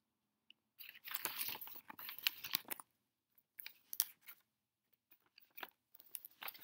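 Crinkly rustling of props being handled close to the microphone: a dense stretch of crackling lasting about two seconds, then scattered crackles and clicks.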